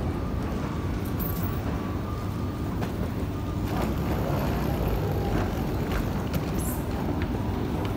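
Steady low rumble and hum of airport terminal background noise, with a few faint clicks and knocks.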